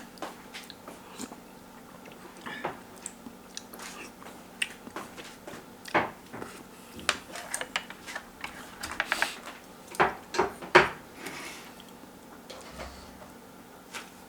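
Close-up eating sounds: bites and chewing with many irregular short, sharp clicks, the loudest a few about ten to eleven seconds in.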